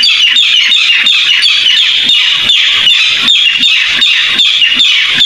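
Barred rail (tikling) calling: a loud, fast run of short repeated notes, several a second, without a break.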